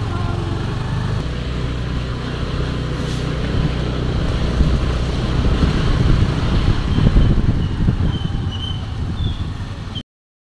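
Honda Activa scooter on the move: engine and road noise with wind rumbling on the microphone. The sound cuts off suddenly near the end.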